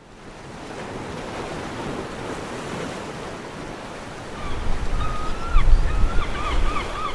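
Rushing wind-and-surf noise fading in, with wind buffeting the microphone from about four seconds in. A few short, pitched warbling calls sound over it near the end.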